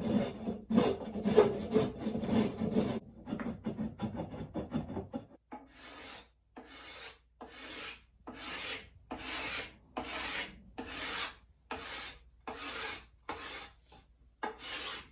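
A hand file rasping on a wooden axe handle, first in quick, uneven strokes for about three seconds. After about five seconds come separate, evenly paced file strokes, a bit more than one a second.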